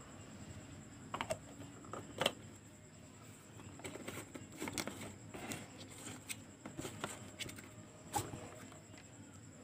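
Faint scattered clicks and knocks of a red plastic lid being fitted onto a jar of water and the jar being handled, the sharpest knock about two seconds in.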